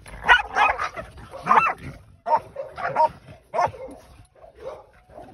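Game-bred bulldog puppies fighting: a run of short yelps and barks, about one or two a second.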